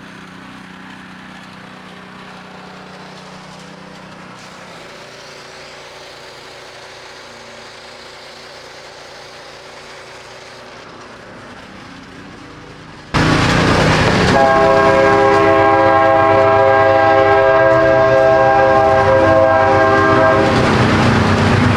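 A gas pressure washer, faint and steady at first. About 13 seconds in it suddenly comes in loud, spraying with a hard hiss, and a steady chord-like whine sits over it for about six seconds.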